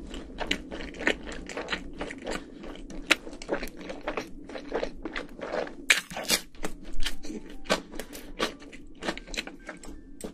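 Close-miked eating: a person biting and chewing crunchy food, with a dense run of short crisp crunches and mouth clicks, the loudest about six and seven seconds in.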